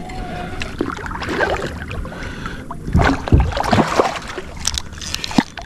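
Water and kayak-hull noise while a large channel catfish is fought at the side of a fishing kayak, with a heavy thump about three seconds in and a few sharp clicks near the end.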